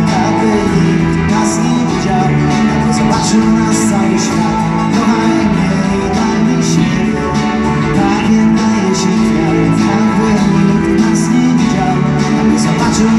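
Live rock band playing an instrumental passage: electric guitars over drums with regular cymbal hits, heard from the seats of a large arena.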